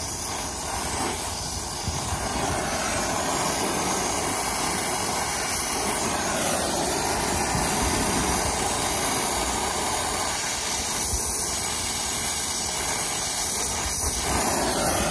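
Brazing torch flame hissing steadily on the copper refrigerant line joints of a heat pump's replacement reversing valve.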